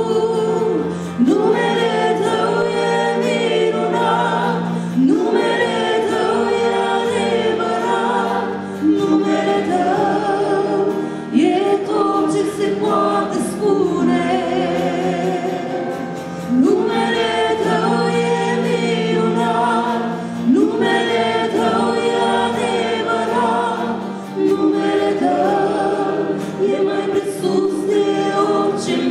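A mixed vocal quartet of two men and two women singing the chorus of a Romanian Christian worship song in harmony, in phrases of a few seconds each, over sustained instrumental backing.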